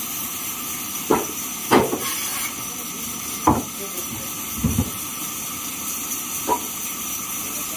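Large sawmill band saw running with a steady hiss, while wooden planks knock sharply onto its table and against each other about five times.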